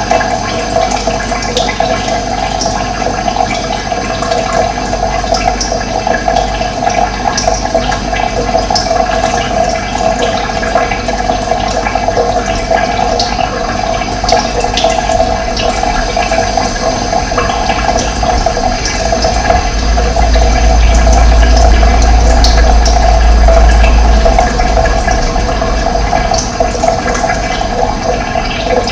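Running water rushing steadily, with faint high bird chirps scattered over it. A deeper rumble swells for a few seconds about two-thirds of the way through.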